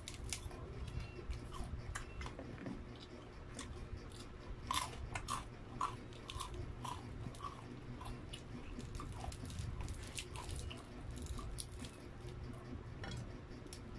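Close-miked biting and chewing of crispy breaded fried chicken: crunching crust and wet mouth sounds, with crackles as pieces are pulled apart by hand. It is busiest a little past the middle.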